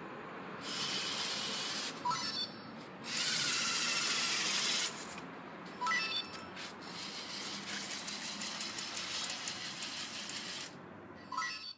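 Lego Mindstorms EV3 tracked robot driving in several spells: its motors and gears whir and its plastic tracks click over the tiles. Short beeps sound three times, about two, six and eleven seconds in.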